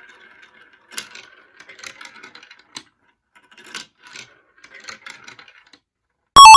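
Marbles rolling and clicking through a plastic building-block marble run, a faint irregular clatter of small hard knocks. Near the end a sudden loud electronic jingle of quickly stepping tones cuts in.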